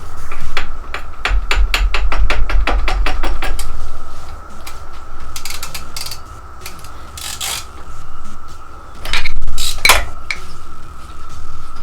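Metal hand-tool work on a dirt bike being taken apart: a quick, even run of clicks about a second in, then scattered clanks and knocks, the loudest near the end.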